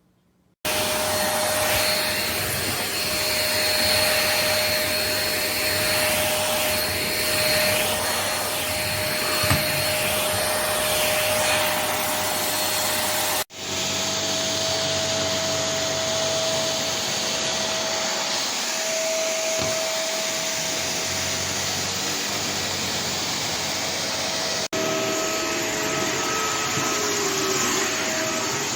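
A 600 W corded cyclone stick vacuum (iwoly V600) is switched on about half a second in and runs with a steady high whine over rushing airflow. The sound breaks off for an instant twice, then carries on.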